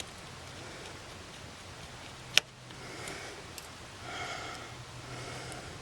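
Small screws and a precision screwdriver being handled on the body of a Canon 5D Mark III during reassembly, with one sharp click about two and a half seconds in over faint handling noise.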